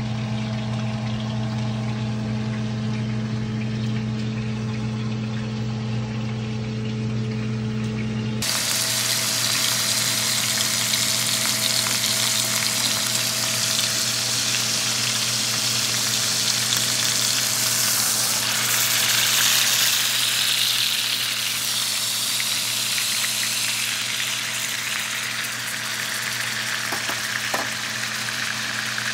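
Chuck roast searing in hot oil in a skillet, sizzling steadily. For the first several seconds, before a cut, only a steady low hum is heard.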